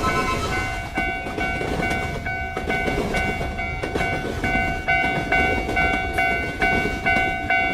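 Level-crossing alarm ringing its repeated clang, about two strokes a second, over the low rumble of a passing train.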